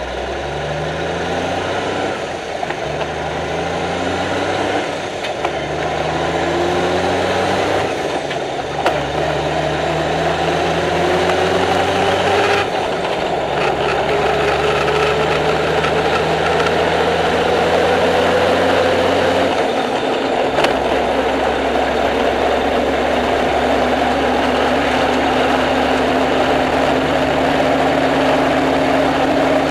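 Heavy truck accelerating through about five gear changes, heard from under the chassis by the rear axle: the low engine note breaks off briefly at each shift. A drivetrain whine climbs slowly in pitch as road speed builds, over steady road noise that grows louder.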